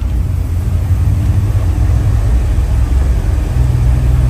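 Loud, steady low rumble from a themed ambient soundtrack playing over loudspeakers, with a deeper hum coming in near the end.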